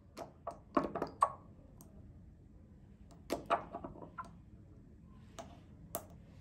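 Glass dropper and its plastic cap clicking and tapping against the neck of a small glass serum bottle. There is a quick cluster of taps about a second in, another a little after three seconds, and two single clicks near the end.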